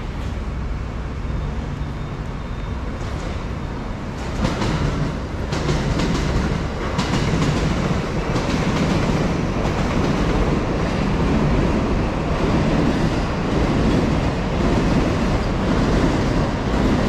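Train passing on nearby tracks: a steady low rumble that grows louder about four seconds in, with the clacking of wheels over rail joints.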